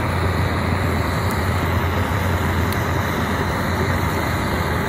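Propane torch on a hose from an LPG cylinder, firing its blue flame into a log fire: a steady, loud rush of burning gas with a low hum underneath.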